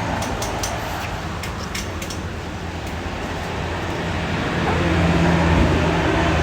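Road traffic: a motor vehicle's engine hum that grows louder about two-thirds of the way through, with scattered small clicks.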